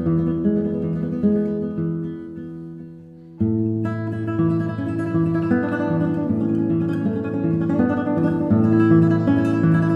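Acoustic guitar music with plucked and strummed notes. It fades down about three seconds in, then a new guitar passage starts abruptly and plays on.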